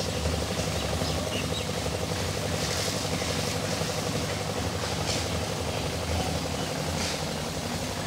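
Engine of construction machinery running steadily with an even, fast-pulsing drone, at a concrete pour. A few brief faint high rasps sound over it.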